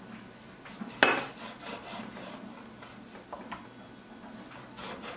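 Kitchen knife cutting raw beef neck into small pieces on a wooden cutting board: one sharp knock about a second in, then quieter taps and scrapes of the blade.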